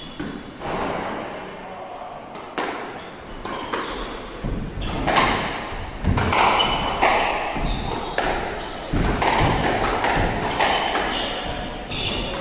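A squash rally: the ball cracking off the rackets and smacking the walls, a string of sharp hits about once a second that ring in the court, with short high squeaks from shoes on the wooden floor.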